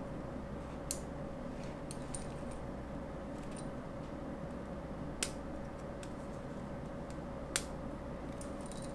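Small clicks and ticks of a thin metal tool prying at the plastic dummy coupler and underframe of an N-gauge model train car, with three sharper clicks about a second, five seconds and seven and a half seconds in, over a steady faint hum.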